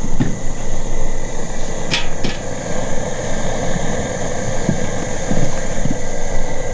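Steady roar of a fryer's gas burner heating a large pot of water, with two sharp metallic clinks about two seconds in.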